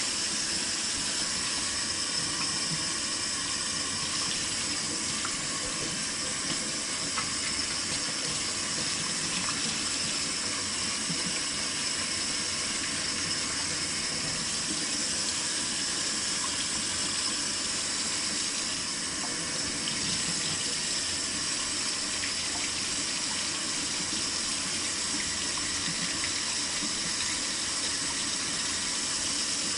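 Water running steadily from a faucet into a sink.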